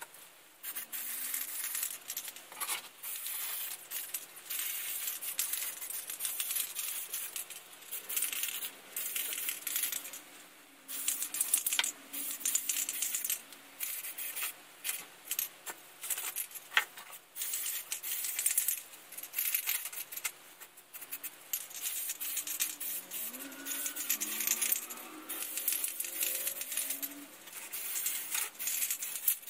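Aerosol can of primer spraying in repeated hissing bursts with short pauses between them, as plastic model kit parts on their sprues are primed.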